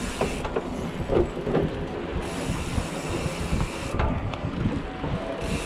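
Mountain bike rolling over a plank bridge deck: a steady tyre rumble with scattered clicks as the wheels cross the board joints, mixed with wind noise on the microphone.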